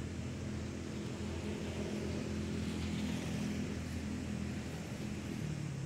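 A motor vehicle's engine running, a steady low hum that grows louder toward the middle and eases off again, its pitch dropping near the end.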